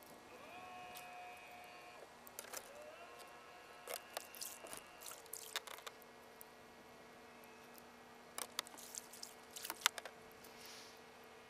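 Quiet handling sounds: groups of small clicks and rattles from a fishing rod and reel being worked, coming about two, four to six and eight to ten seconds in, over faint steady tones.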